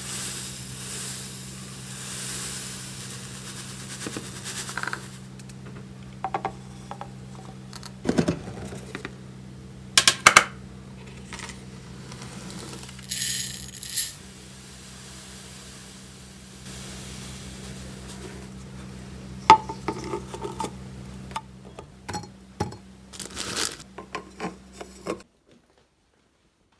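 Scattered small clicks, clinks and taps, like objects being handled and set down, over a steady low hum. The sound cuts off abruptly near the end.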